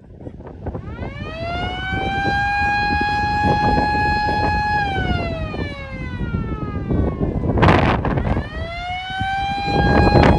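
MS-490 outdoor warning siren sounding a wail: its tone winds up and holds steady, falls away, then winds up again. Gusts of wind hit the microphone twice, loudest in the second half.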